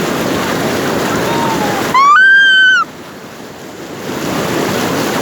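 Flood water splashing and sloshing as people wade through it. About two seconds in, a loud high-pitched call rises, holds for just under a second, then falls away.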